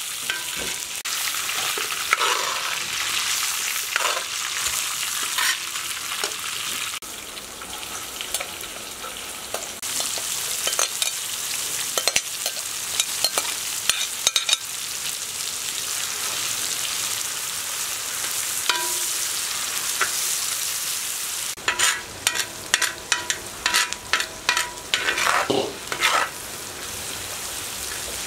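Chopped onions sizzling in oil on a large iron sadj pan, with a steady hiss. A metal spatula scrapes and clicks against the iron as they are stirred, in a quick run of strokes about three quarters of the way through.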